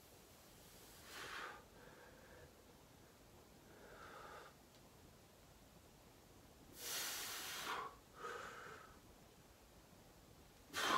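A man's heavy breathing under exertion during slow bodyweight split squats: four short, forceful exhales, the loudest about seven seconds in.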